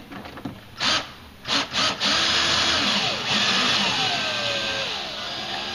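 Power drill driving a screw through the plastic filler plate: a few short trigger pulls, then a long run from about two seconds in whose pitch falls as the drill is slowed down so the screw does not strip.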